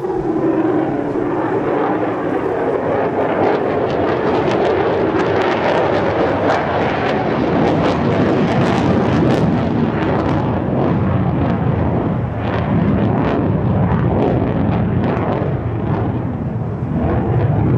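A Lockheed Martin F-35A Lightning II's single Pratt & Whitney F135 jet engine is flying a display pass with its afterburner lit in a steep climb, making a loud, continuous jet roar full of crackle. A low tone in it drops in pitch over the first two seconds.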